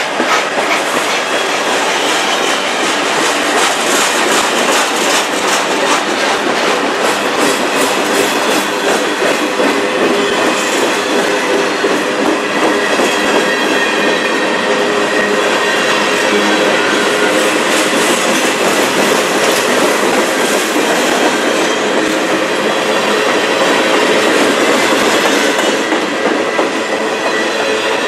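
Freight cars of a passing manifest train rolling by at close range: steady wheel-on-rail noise, with rapid clicking from the wheels over rail joints in the first few seconds. Faint wheel squeal runs underneath.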